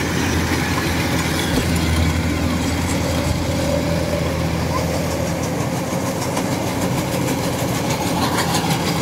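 Kubota DC105X combine harvester running steadily under load as it cuts and threshes rice: an even, unbroken diesel engine drone with the machinery noise of the cutting and threshing.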